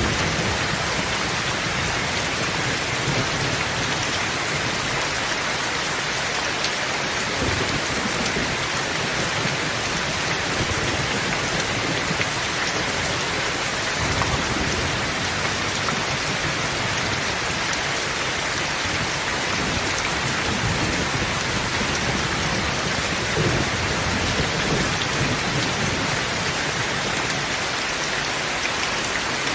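Steady heavy rain falling, with low rumbles of thunder swelling now and then beneath it.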